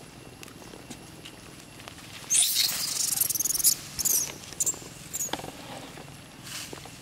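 Long-tailed macaques screeching: a harsh, high-pitched burst of about a second and a half starting a little over two seconds in, followed by several shorter squeals.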